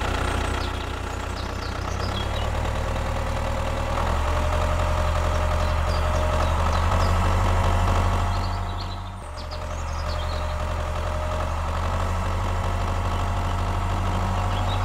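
Tractor engine running steadily at an idle-like pace, a low, even engine note with a brief dip about nine seconds in.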